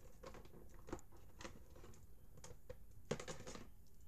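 Faint, irregular light clicks and taps of things being handled close to the microphone, with a quick cluster of clicks about three seconds in.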